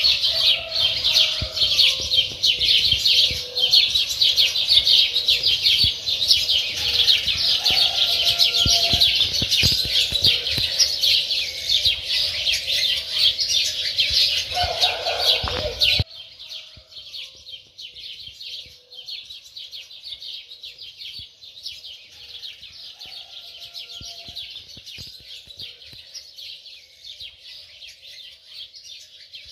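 Many small birds chirping at once in a dense, continuous chorus. The chorus drops sharply in level about sixteen seconds in and carries on more quietly.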